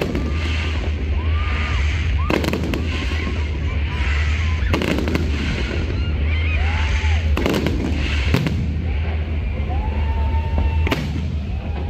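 Aerial fireworks shells bursting overhead: about six loud bangs, one every one to two and a half seconds.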